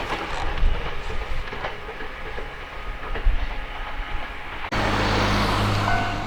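A Sangi Railway train running over the rails, its wheels clacking on the rail joints. About four and a half seconds in, the sound changes abruptly to a steady low hum and hiss, and just before the end a level-crossing warning bell starts its repeated ringing.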